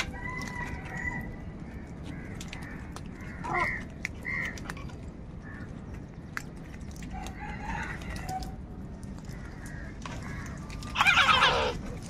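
House crows feeding at a bowl: scattered ticks of beaks, a few faint calls about four seconds in, then one loud harsh caw near the end, over a low steady background rumble.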